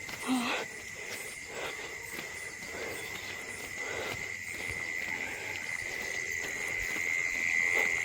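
Night insects trilling steadily on one high, unbroken tone, with a few soft irregular rustles or steps underneath.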